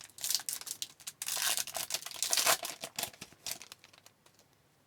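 A foil trading-card pack wrapper being torn open and crinkled, in rough rustling bursts for about three and a half seconds, then stopping.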